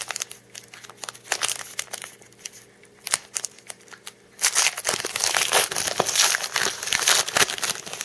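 Wrapper of a trading card pack being crinkled and torn open, with cards being handled. At first there are scattered crackles, then about four and a half seconds in the crinkling becomes dense and continuous.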